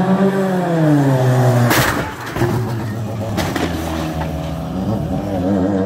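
Rally car's engine revving as it approaches and then dropping in pitch. Less than two seconds in, a loud sharp crash of impact, followed by a few scattered knocks, consistent with a collision that leaves debris on the road. An engine runs on steadily afterwards.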